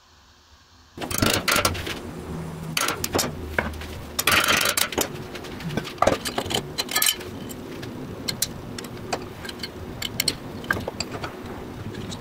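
Workshop metalwork sounds: irregular clinks and knocks of small steel parts being handled and worked, with a short rasping scrape about four and a half seconds in, over a faint steady hum.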